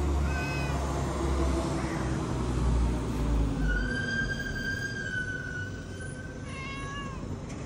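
Stray cats meowing: one short meow just after the start and a few short meows near the end. A low vehicle rumble fades out about halfway through, and a long steady high-pitched call lasts about two and a half seconds in the middle.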